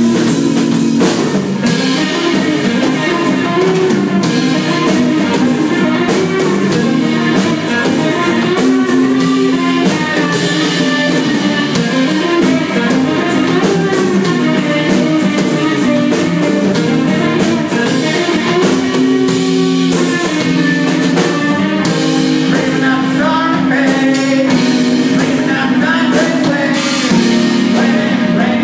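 Live rock band playing: electric guitars over a drum kit, with a guitar line moving up and down.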